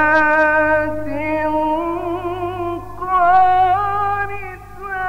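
A male Quran reciter chanting in the melodic mujawwad style, drawing out the word "mu'minatin" (believing women) in a long ornamented melisma, with a brief pause for breath near the end. A steady low hum from the old recording runs underneath.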